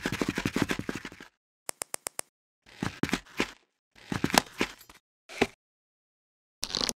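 Sound effects for a LEGO minifigure stop-motion: a quick patter of running footsteps, about ten steps a second, for the first second, then a string of short edited-in effects with silence between them, including a run of about five sharp clicks about two seconds in.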